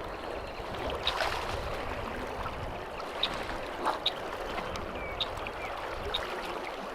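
Steady rushing of water flowing in a small creek or irrigation ditch, with faint short high ticks now and then.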